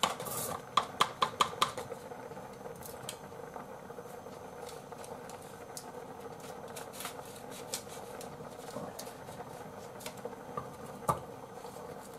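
A small paper sachet being crinkled and handled, with a quick run of sharp crackles in the first two seconds and a few scattered clicks later, including scissors cutting into it. A faint steady hum lies underneath.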